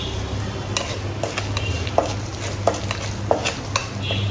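Spatula stirring spices into a little oil in an aluminium kadai, clicking and scraping against the metal pan in about eight irregular knocks.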